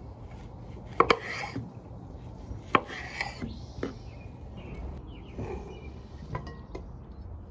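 Scattered sharp knocks and scraping of kitchen utensils against a board or dish: two close knocks about a second in, one near the three-second mark, and a few lighter ones later.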